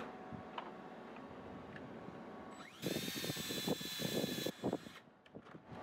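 Cordless drill spinning up with a rising whine and boring a pop-rivet hole through the joint of a metal roller-furler foil, about two and a half seconds in. It runs for under two seconds with some uneven chatter from the bit, then winds down and stops.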